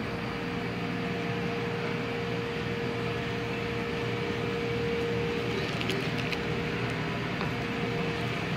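A steady machine hum holding one constant tone over an even rush of noise, with a few faint clicks about six seconds in.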